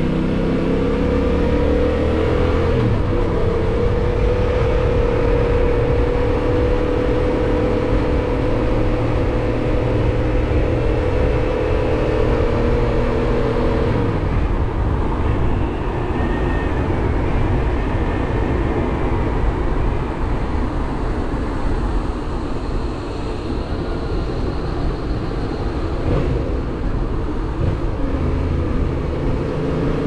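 Yamaha MT-07's parallel-twin engine running at a steady cruising pitch over wind and road rush. About halfway through the engine note drops away, leaving mostly wind noise, and it starts to rise again near the end.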